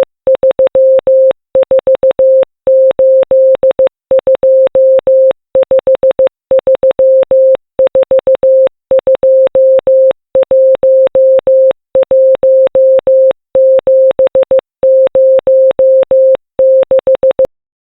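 A 528 Hz electronic tone keyed on and off in Morse code, in short dots and longer dashes grouped into five-element digit characters, spelling out digits of pi. There is a faint click at each start and stop, and the tone stops shortly before the end.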